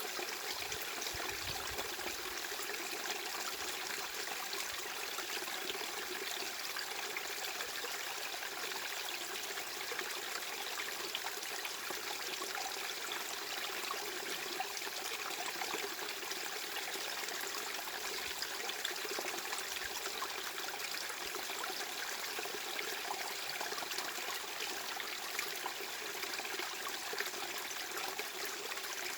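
Steady, unchanging rush of flowing, trickling water used as a masking noise, even throughout with little low rumble.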